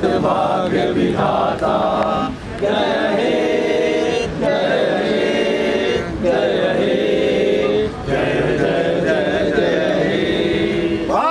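A group of men singing together in unison, without instruments, holding long notes of one to two seconds each through the second half.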